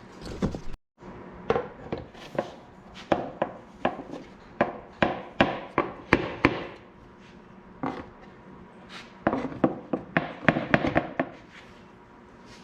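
Irregular sharp clicks and knocks of hand tools and hardware being handled, in uneven clusters with a short lull in the middle.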